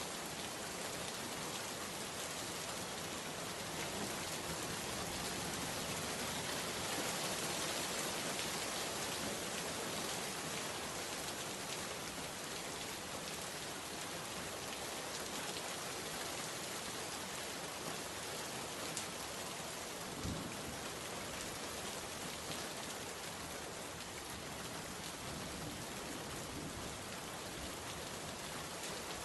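Steady rain falling, an even dense hiss of drops hitting surfaces, with a brief low thump about twenty seconds in.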